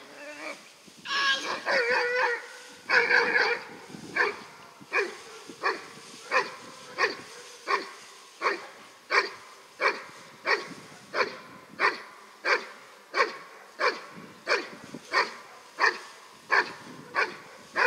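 Large black dog barking steadily at a protection helper in a hold-and-bark, about three barks every two seconds. A denser, louder flurry of barks comes about a second in.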